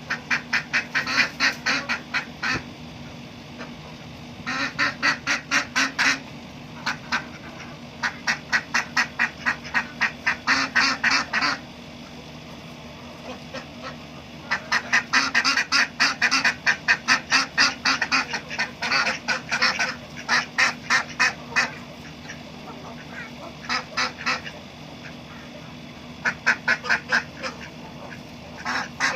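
Ducks quacking in fast runs of calls, in repeated bouts of one to a few seconds with short pauses, the longest stretch in the middle, over a steady low hum.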